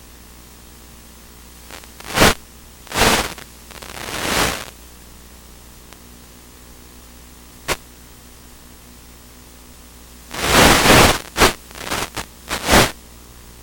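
Irregular bursts of loud white-noise static over a faint steady hiss and hum, typical of the audio on an analog 5.8 GHz FPV video link crackling as the signal breaks up. There are a few separate bursts in the first half, then a dense cluster of them near the end.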